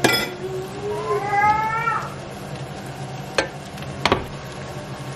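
Pot handled on a glass induction hob. A short squeal rises in pitch, then two sharp knocks come a little under a second apart as the pot is set down.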